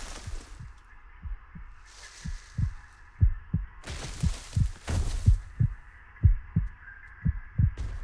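A series of low, dull thumps, about three a second, like a heartbeat, over a steady hum. Bursts of hiss come about two seconds in and again around four to five seconds.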